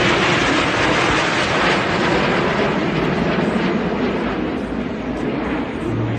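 Steady, loud roar of jet engines as a formation of Snowbirds CT-114 Tutor jets flies past.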